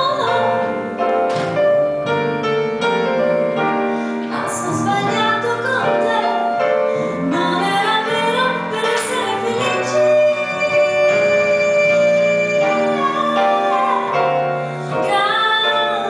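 Live jazz: a woman singing, with keyboard and guitar accompaniment.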